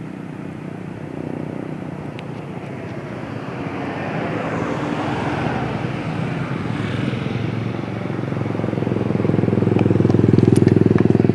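Road traffic passing. A vehicle goes by with a rising and fading whoosh around the middle, then a heavy bus diesel engine rumbles and grows louder over the last few seconds as it comes close. No telolet horn sounds.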